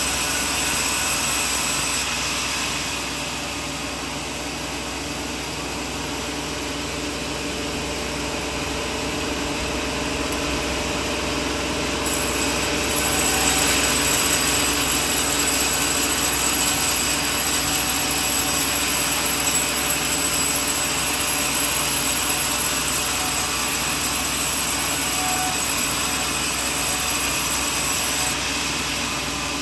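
Sawmill running and sawing coconut wood: a loud, steady machine noise. It drops abruptly about two seconds in, builds slowly, jumps louder around the middle, and drops again near the end.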